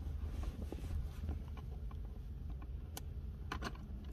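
Faint plastic clicks from a Honda Civic's rear armrest compartment lid as it is pressed and its latch lets go, one click about three seconds in and a couple more half a second later, over a low steady rumble.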